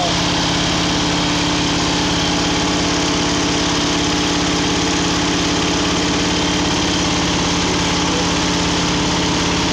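Ford 460 cubic-inch big-block V8 idling steadily, its first run after 15 years without starting.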